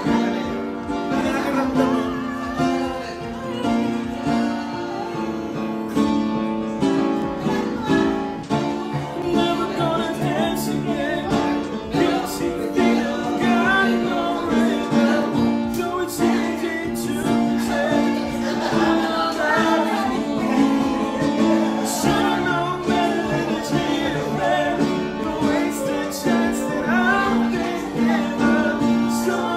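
A live jam: a man singing a slow song, accompanied by piano and strummed acoustic guitar.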